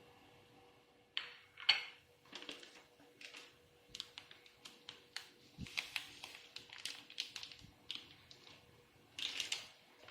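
Irregular clicks, taps and short rustles of hands working with food and utensils in a kitchen, starting about a second in.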